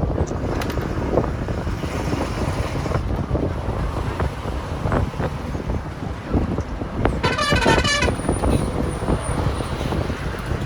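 Road traffic with wind rumble on the microphone; about seven seconds in, a vehicle horn sounds once with a wavering tone for under a second.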